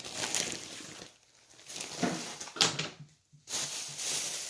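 Plastic bag crinkling and rustling in stretches as items are handled and packed away.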